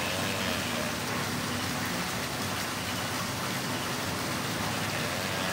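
Steady rushing splash of a small waterfall pouring into a pond. Over it, a male tortoise mounted on a female gives faint short mating calls, once at the start and again near the end.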